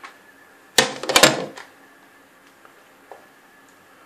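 A quick cluster of sharp clicks and knocks about a second in, then one faint tick near the end: straight razors being handled in their case.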